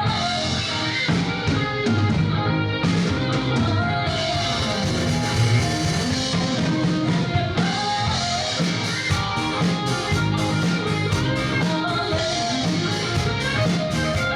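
Live five-piece band playing a K-pop song with a rock beat: singing over electric guitar, bass, drum kit and keyboard, with steady drum hits throughout.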